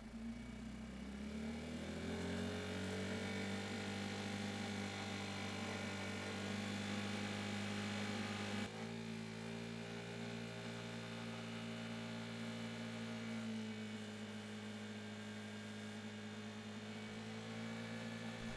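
The single-cylinder engine of a 2020 Vespa GTS 300 HPE scooter running under way. Its steady hum rises in pitch over the first couple of seconds as the scooter speeds up, then holds. A little before halfway the sound breaks off suddenly and carries on at a slightly different steady pitch.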